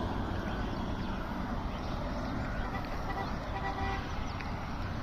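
Steady low rumble and noise of road traffic, with a few faint short tones a little past the middle.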